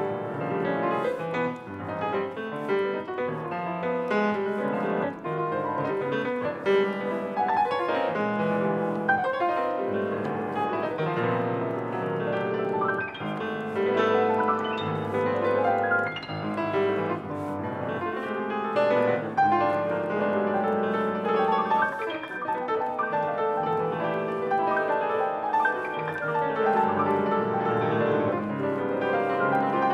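Grand piano played with both hands in a large church hall: a continuous, dense passage of many quick notes across the keyboard, at a steady fairly loud level.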